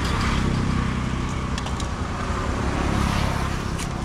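Steady low rumble of a running motor vehicle, with a hiss over it.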